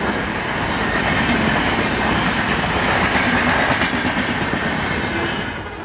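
Indian Railways passenger train coaches passing close by: a steady loud rumble and clatter of steel wheels on the rails. It eases off near the end as the last coach goes by.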